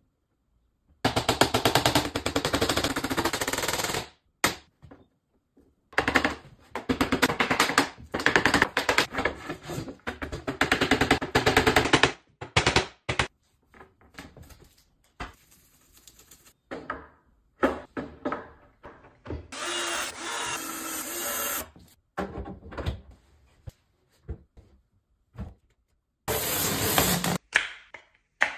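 Clear plastic film pulled off a roll and stretched over a panel, in several loud bursts of rapid crackling rasp, with scattered knocks of handling between them.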